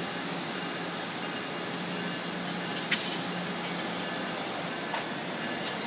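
Bilevel passenger train rolling slowly past, its wheels squealing in thin high tones from about four seconds in. There is a single sharp clank about three seconds in.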